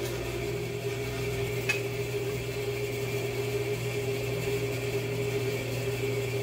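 Bandsaw motor running steadily with an even hum, with a single light tick about two seconds in.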